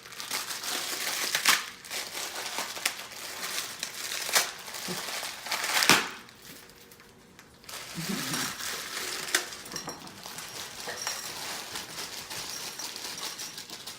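Dry instant ramen noodles being crushed inside their plastic packet: crunching and the wrapper crinkling in a dense run of crackles and snaps. The sharpest snap comes about six seconds in, followed by a short lull before the crinkling resumes.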